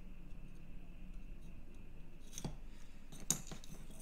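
Small printed circuit boards handled and set against one another on a work mat: a quiet stretch, then two light, sharp clicks about a second apart.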